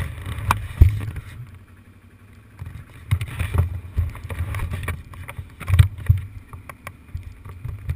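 Low rumbling surges with scattered sharp knocks: wind buffeting and jostling on a moving camera's microphone. The louder surges come about a second in, around three to four seconds in, and near six seconds in.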